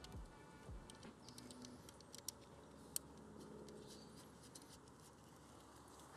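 Near silence, with faint handling rustles and two small sharp clicks about two and three seconds in, from fingers fitting an SMA cable connector onto a LiDAR unit's port.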